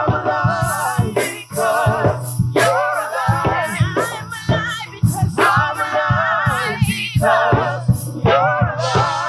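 Live gospel worship music: a church praise team singing long notes with vibrato over a band, with a steady drum beat and bass.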